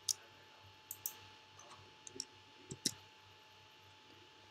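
Scattered faint clicks of computer keyboard keystrokes, about eight separate key presses spaced irregularly.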